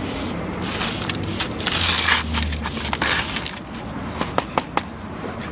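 Hand brush sweeping rust flakes and grit off tarmac into a plastic dustpan, the bristles scraping in repeated strokes, with a few sharp ticks about four seconds in.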